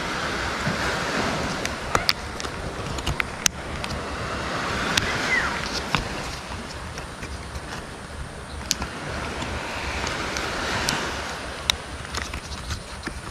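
Surf washing ashore in slow swells, with wind, and sharp plastic clicks and taps from a dive mask frame being handled and pressed.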